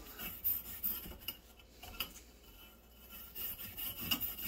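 Twisted-wire tube brush scraping back and forth inside a rusty steel shaft tube of a snowmobile suspension skid, scouring out loose rust. Irregular rasping strokes, thinning to a quiet lull in the middle and picking up again toward the end.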